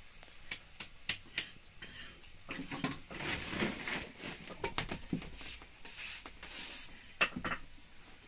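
Hands patting, pressing and rubbing roti dough on a flat stone, soft pats and scuffs, with scattered sharp clicks from the crackling wood fire beside it.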